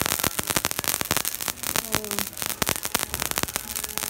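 Small spice seeds crackling and popping as they dry-roast in a hot iron kadai: a dense, irregular run of sharp little clicks.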